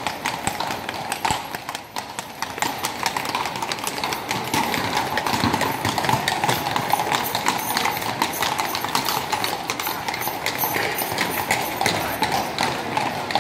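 Horse hooves clip-clopping steadily, a quick, continuous run of hoofbeats.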